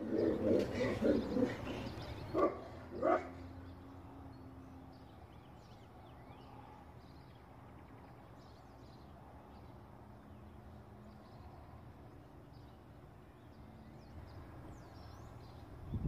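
A dog barks in a quick run of barks, then twice more about two and a half and three seconds in. After that, small birds chirp faintly over a low steady background hum.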